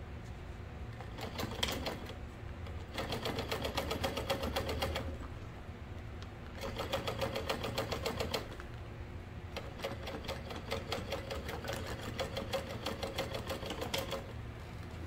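Industrial sewing machine top-stitching through faux leather, running in three bursts of rapid, even stitching with short pauses between them.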